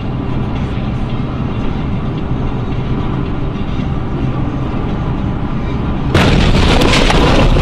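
Steady engine and road rumble inside a vehicle's cab. About six seconds in, a sudden much louder crashing roar breaks in and carries on as the vehicle leaves the road in an accident.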